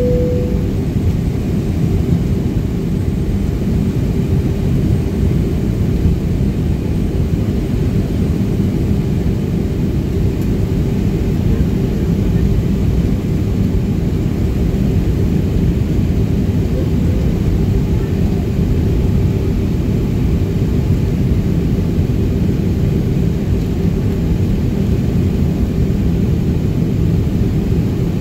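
Airliner's jet engines running steadily while the plane taxis, heard from inside the cabin beside the engine: a constant low rumble with a steady hum.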